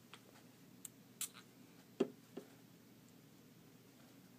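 Quiet room with a few faint clicks and short high ticks in the first two and a half seconds, from small objects being handled.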